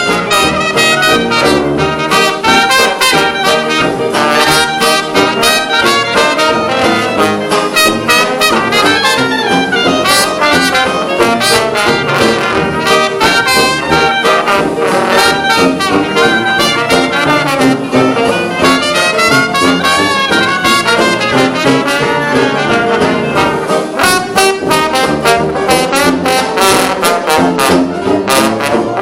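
Live traditional jazz band playing, with trumpet and trombone leading over a steady rhythm-section beat.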